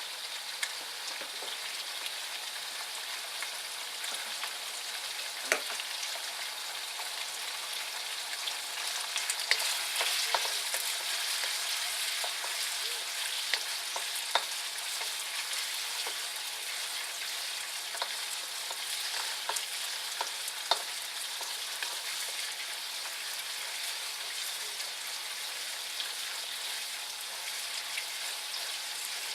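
Chicken marinated in sesame oil frying in a wok, a steady sizzle, with a few scattered knocks of a wooden spoon stirring it.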